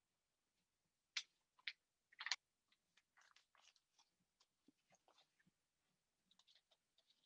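Near silence: room tone with three short faint clicks between about one and two and a half seconds in, then scattered very faint ticks.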